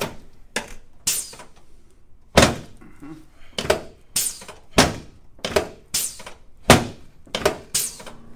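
Chiropractic adjustment of the front ribs: a series of about a dozen sharp thuds, one every half second to second, each with a short ring after it.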